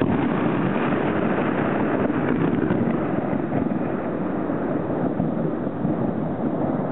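Thunder: a sudden crack, then a loud rolling rumble that slowly eases.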